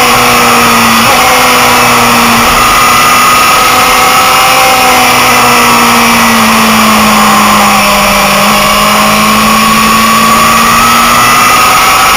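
Motorcycle engine running hard at high revs, recorded on board with heavy wind rush over the microphone. The engine note sags slowly through the middle and climbs again near the end.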